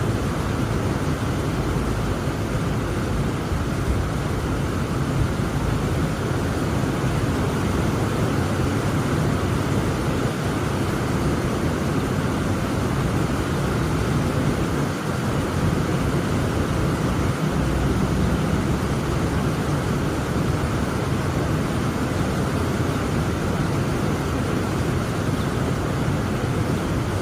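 Heavy rain pouring steadily, a dense, even rush of noise weighted toward the low end.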